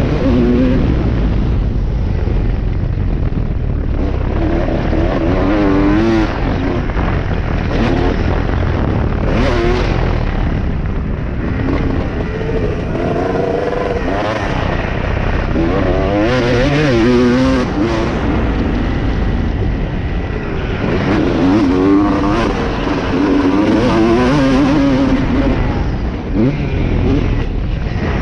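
250-class motocross dirt bike engine revving hard and dropping back again and again as the rider accelerates, shifts and brakes around the track, with wind buffeting the helmet-mounted camera.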